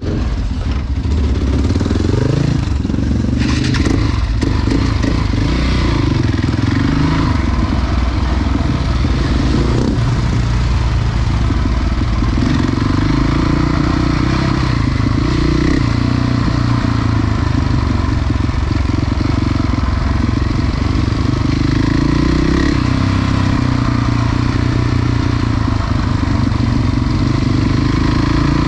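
Enduro motorcycle engine running steadily, its pitch rising and falling a little with the throttle, with a few clatters about three to four seconds in.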